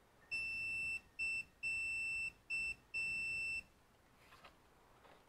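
Electronic beeper sounding five high-pitched beeps in a long, short, long, short, long pattern, then stopping.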